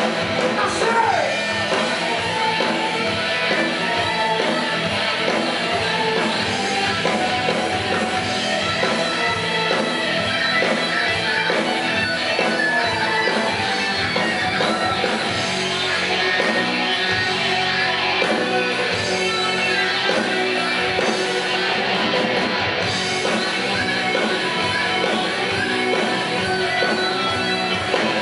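A live rock band playing steadily: drum kit and cymbals with electric guitar and a singer.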